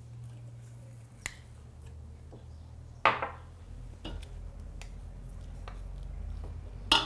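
Metal spoon and knife scraping thick molasses from a glass bowl and tapping against a stainless-steel mixing bowl: a few light clicks and two sharper clinks with a short ring, about three seconds in and near the end, over a low steady hum.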